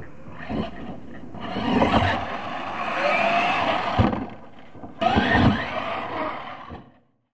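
Radio-controlled monster truck's motor revving in rising and falling whines, with tyres scrabbling on dirt and two hard knocks around four and five seconds in as the truck lands from jumps. The sound cuts off suddenly near the end.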